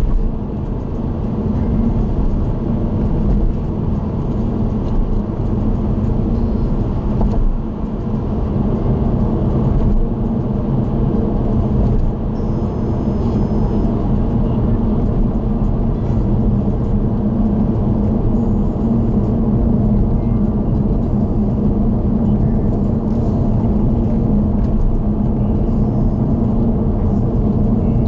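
A car cruising on an expressway, heard from inside the car: a steady rumble of tyre, road and engine noise, strongest in the low range.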